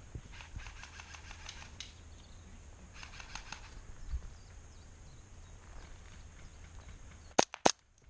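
Wind rumble on the microphone with spells of rapid, fine clicking, then two loud sharp cracks about a third of a second apart near the end.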